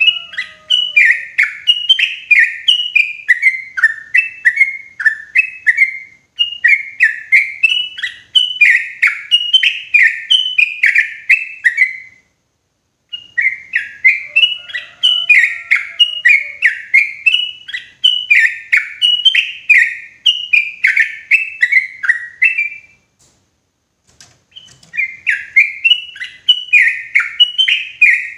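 Yellow-vented bulbul singing loud, clear song: long chattering phrases of quick, short falling notes, in four runs broken by brief pauses.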